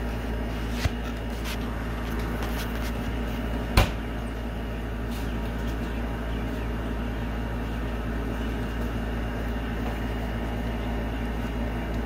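Steady machine hum with a low rumble, broken by a few faint clicks and one sharp knock a little before four seconds in.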